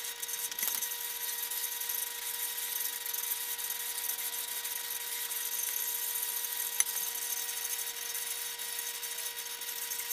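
A faint, steady hum over a hiss, with a light click or two.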